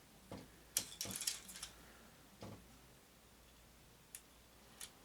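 Small hard-plastic clicks and rattles from a Transformers action figure being handled, as its sword blade is worked back into the sword: a sharp click under a second in, a quick cluster of clicks just after, a duller knock midway and two light clicks near the end.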